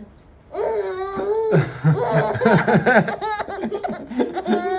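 Baby laughing: a high-pitched squeal about half a second in, then quick repeated bursts of laughter, with deeper laughter mixed in.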